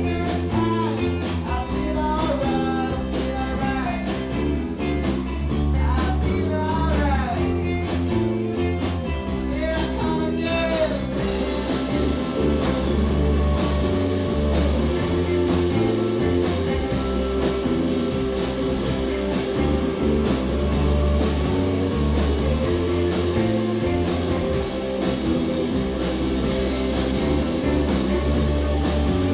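Live rock band playing: electric guitars, bass guitar and drum kit. For the first ten seconds or so a melodic line of bending notes stands out over the band, after which the band plays on in a fuller, more even texture.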